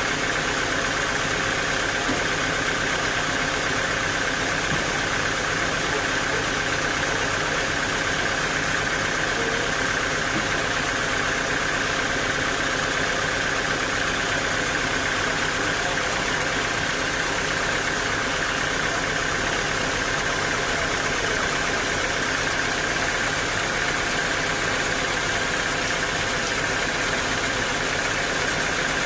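Sawmill machinery running steadily: a constant mechanical drone with a steady high whine that does not change.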